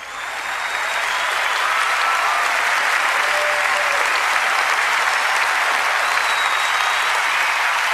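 A large theatre audience applauding, fading in over the first second and then holding steady.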